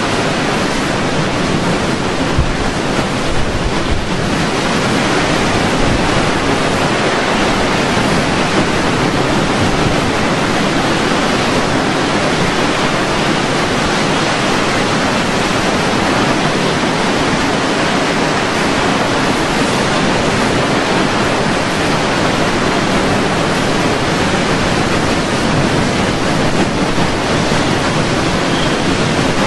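Hurricane-force wind blowing in a loud, steady rush, with gusts buffeting the microphone in a low rumble.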